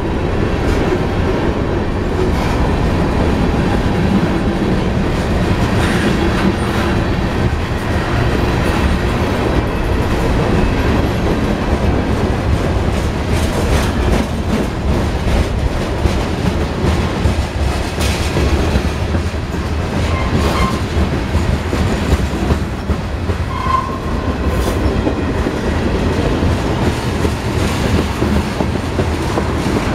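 Freight train cars (covered hoppers, a gondola and tank cars) rolling steadily past close by: a continuous rumble of steel wheels on rail, with irregular clicks and clacks of the wheels over the track.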